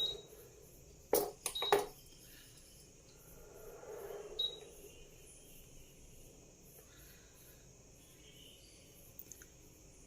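Preethi induction stove's control panel beeping as it is switched on for a test run through a series lamp after repair. There are sharp clicks with a short high beep a little over a second in, and another short beep about four and a half seconds in.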